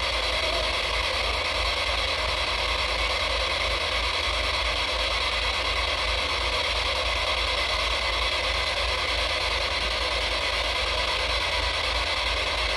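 SB-7 spirit box sweeping rapidly through radio stations, giving a steady hiss of radio static with a fast, choppy flutter under it.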